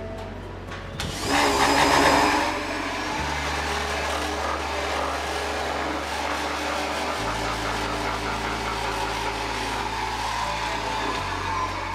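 Abrasive cut-off machine (chop saw) with a DC motor fed from a solar-panel supply, switched on about a second in and then running steadily. It is loudest just after it starts; the steady running shows the machine working on DC power.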